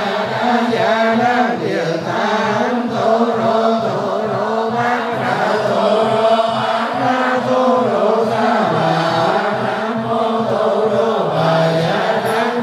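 Buddhist monks chanting in a steady, even melodic line, with a regular rhythmic beat underneath.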